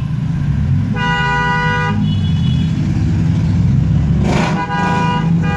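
Road traffic with a steady engine rumble, and a vehicle horn sounding twice: a held note about a second in, and again near the end.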